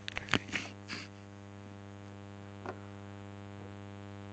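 Steady electrical mains hum, with a few light clicks and taps in the first second and one more about two and a half seconds in.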